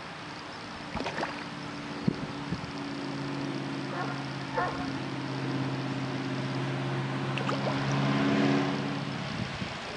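An engine runs with a steady drone that grows louder, peaks near the end and then eases off. Koi splash at the pond surface as they feed, with a few short sharp splashes.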